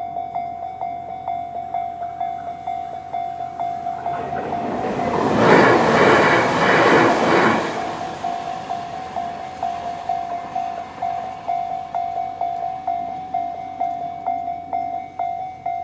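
Railway level-crossing warning bell, the electronic Tobu-style tone, ringing about three times a second. An electric train passes over the crossing from about four to eight seconds in, and its rush briefly drowns the bell.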